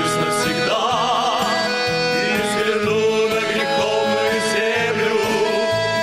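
Music of a Christian church song: voices and instruments, with a held note wavering in pitch about a second in.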